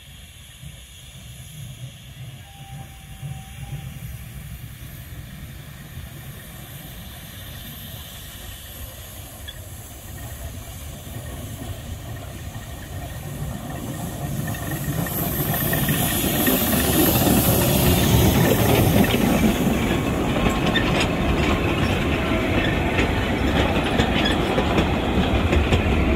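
Narrow-gauge steam locomotive approaching and passing close with a train. Its steam hiss and exhaust build up and are loudest about 15 to 20 seconds in. Then the wagons and brake van rattle and click over the rail joints as they go by.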